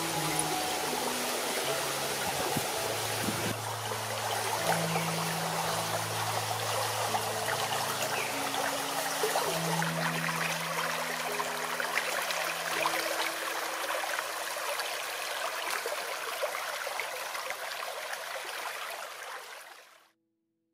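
Shallow stream running, a steady rush and trickle of water. Soft music of long held low notes plays under it and stops about two-thirds of the way in; the water sound fades out just before the end.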